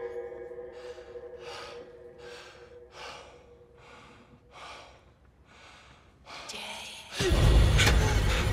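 A man panting heavily, with quick breaths nearly twice a second that slowly grow fainter, over a held low music drone that fades out. About seven seconds in, a sudden loud crash with a heavy low end cuts in.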